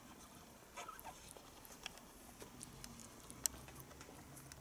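Cat grooming itself, licking its fur and paw: faint, scattered wet licking clicks, a little cluster about a second in and the sharpest one about three and a half seconds in.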